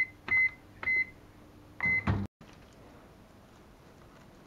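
Microwave oven beeping at the end of its cycle: a quick chirp, then three short high-pitched beeps, the last one followed by a low clunk.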